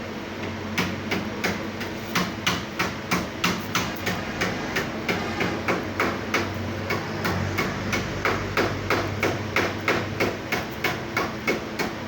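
Rapid, evenly spaced sharp knocks or taps, about three to four a second, over a steady low hum.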